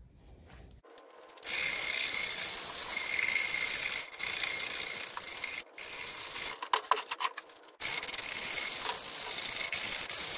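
Plastic-bristled scrub brush scrubbing the rough, weathered oak staves of an old whiskey barrel, knocking loose flaky debris off the surface. It is a scratchy scrubbing that starts about a second and a half in and goes in long stretches, with a couple of short pauses and a few light knocks in the longer pause.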